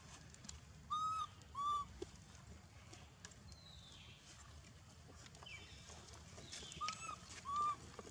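Short, arched, pitched calls in two-note pairs, heard twice: about a second in and again near the end. Faint high falling whistles come between them.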